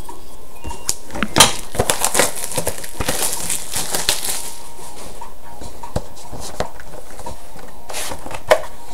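Plastic wrapping crinkling and tearing as a sealed trading-card box is opened, with clicks and rustles of the cardboard box being handled. The handling is busiest in the first four or five seconds and thins out to a few clicks after that.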